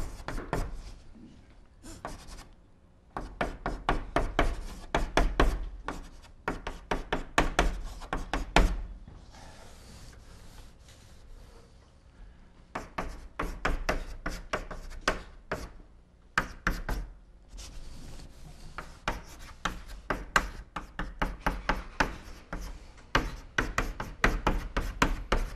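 Chalk writing on a blackboard: quick runs of taps and scrapes as characters are written stroke by stroke, with short pauses between the runs.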